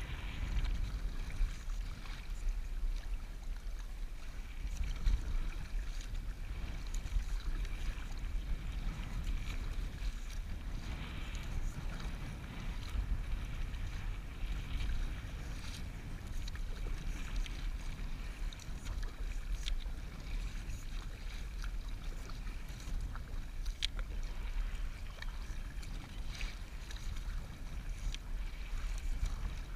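Wind buffeting the camera microphone in a steady low rumble, with water splashing and lapping against the kayak and paddle as an inflatable kayak is paddled across choppy water.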